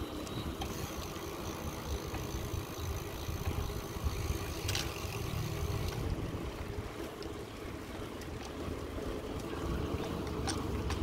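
Steady low rumble of wind on the microphone and road noise from a bicycle being ridden along a paved path, with a sharp click about halfway through and another near the end.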